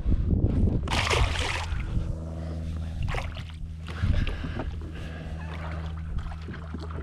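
Water splashing as a snook is lowered over the side of a kayak and released by hand, with the loudest splash about a second in, then water sloshing and dripping around the hand and small knocks on the hull.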